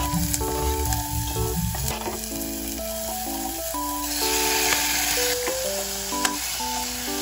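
Chopped onion and garlic sizzling in hot oil in a pot while a wooden spoon stirs them. The sizzle grows louder about four seconds in, as raw chicken pieces go into the pot.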